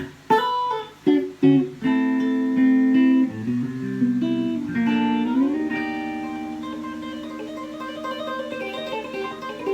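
Rebuilt Fender Telecaster electric guitar played through an amp as it is tried out: a few short chord stabs, then chords left to ring. The last chord is held and fades away slowly over several seconds.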